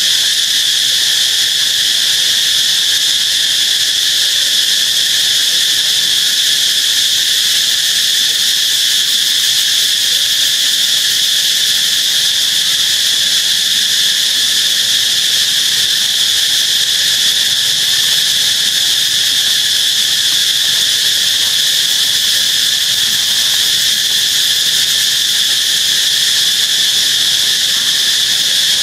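Loud, continuous chorus of insects, a steady shrill buzz that holds without a break.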